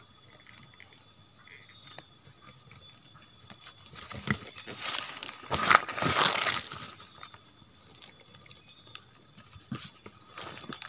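Dry leaves and twigs rustling and crackling as they are handled on the forest floor beside a mole cricket burrow, loudest about midway, with a few short crackles near the end. A faint steady high-pitched whine runs underneath.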